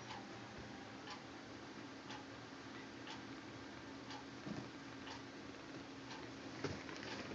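Clock ticking about once a second, faint, over a steady low hum.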